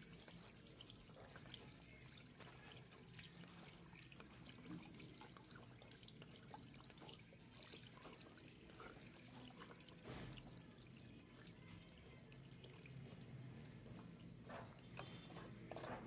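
Faint trickle and drip of water running out of a front-load washing machine's drain filter opening as the filter plug is unscrewed. The water is left standing in the machine because it has not drained. Occasional faint clicks sound as the plug is handled.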